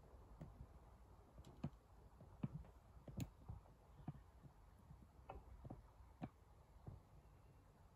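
Near silence: quiet room tone with faint, irregular small clicks and ticks, about one or two a second.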